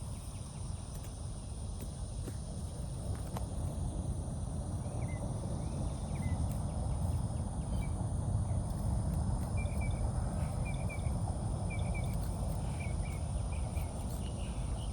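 Riverbank ambience: a steady high-pitched insect trill, with short repeated bird chirps starting about five seconds in, over a low rumble.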